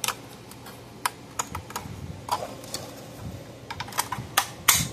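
Circuit board being fitted by hand into a plastic electric fence energizer housing: irregular light clicks and taps of board and plastic parts, with the loudest clicks near the end.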